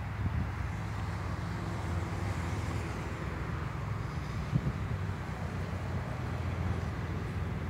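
A car engine running steadily at idle, with wind noise on the microphone.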